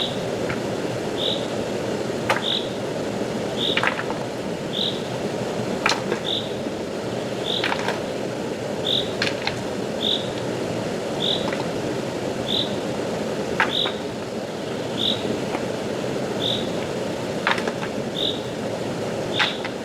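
Rushing stream water, a steady rush. Over it, a short high chirp repeats about once a second, with a few sharp clicks scattered through.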